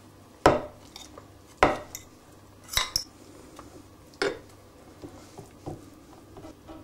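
A metal utensil knocking and clinking against a dish, about four sharper knocks roughly a second apart with lighter taps between, as spinach is spooned into a layered lasagne.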